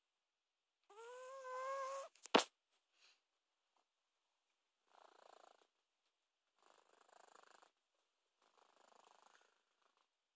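A sleeping cat snoring: three faint, raspy breaths in the second half, one about every one and a half to two seconds. About a second in, a short rising cry lasting about a second, followed by a single sharp click, the loudest sound.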